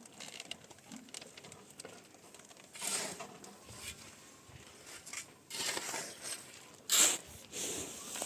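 Irregular rustling and scraping noises in short bursts, the loudest about seven seconds in.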